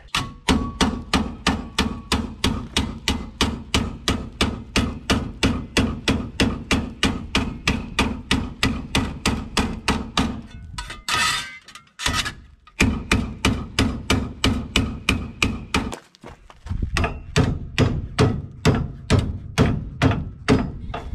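Hammer beating a steel post-base plate flat while it is clamped in a hitch-mounted vise: rapid, even blows, about three a second. The blows stop for about two seconds just after halfway and pause briefly again a few seconds later.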